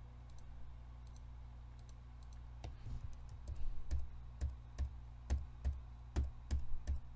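Clicks of a computer mouse and keyboard being worked: about a dozen sharp clicks, roughly two a second, starting a little before three seconds in, over a faint steady low hum.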